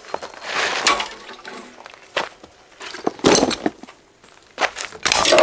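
Footsteps and handling noises on gravel and grass: irregular scuffs and a few sharp knocks, the loudest about three seconds in and another cluster near the end.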